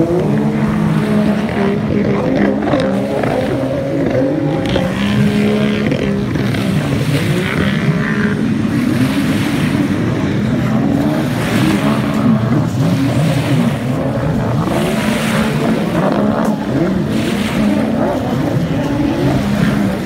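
A pack of racing runabout personal watercraft running at full throttle. Several engines sound at once, their pitches rising and falling as the machines race and turn.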